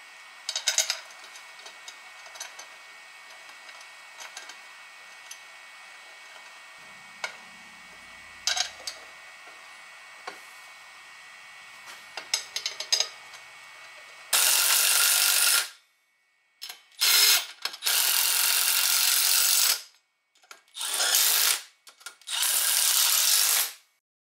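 Light metal clicks and taps of nuts and parts being handled on a steel flywheel. About two-thirds of the way in, these give way to four loud, hissing bursts of a power tool, each lasting one to three seconds and each cut off abruptly.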